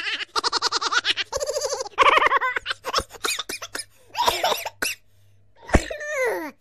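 A young child's high-pitched giggling and laughter in short bouts of quick pulses, with a sharp thump and a falling, drawn-out vocal sound near the end.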